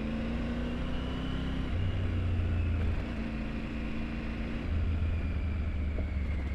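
Triumph Tiger 900 Rally Pro's three-cylinder engine running at low road speed on a bumpy gravel road, the throttle opening twice and easing off, with a steady rush of road and wind noise.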